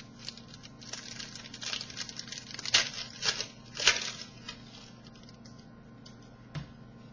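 Trading cards and pack wrapper being handled: irregular crinkling and rustling, with sharper crackles about three and four seconds in, then a single click near the end.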